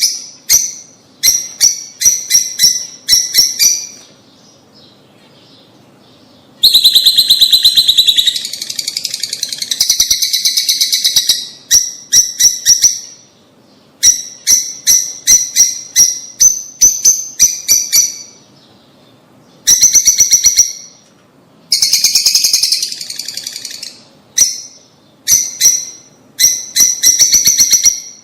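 Lovebirds calling in shrill, rapid-fire chattering bursts of one to two seconds each, with short pauses between bursts and a longer pause about four seconds in.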